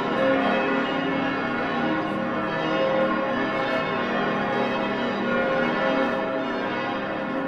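The full peal of St. Stephen's Cathedral in Vienna, its many large church bells ringing together in a dense, unbroken clangour of overlapping tones. They are tolling in mourning for the death of Pope Francis.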